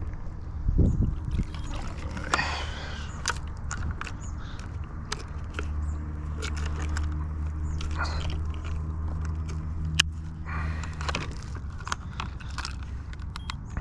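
Knocks, scrapes and sharp clicks of a big catfish being netted and hauled aboard a boat, with a heavy thump about a second in, over a steady low hum.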